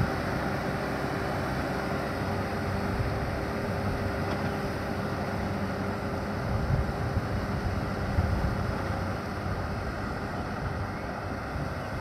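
Kubota tractor's diesel engine running steadily as it pulls a rotary tiller through a flooded paddy, growing slightly fainter near the end as it moves away.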